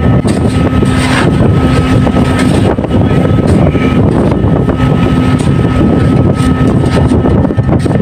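Loud, steady drone of fishing boats' engines and deck machinery running, with a low hum that comes and goes.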